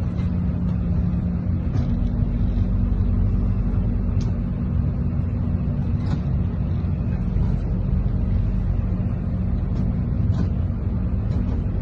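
A fishing boat's engine running steadily, a low drone, with a few faint knocks.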